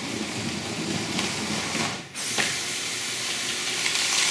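Lego train running along plastic track: a steady rattling hiss that briefly dips about two seconds in.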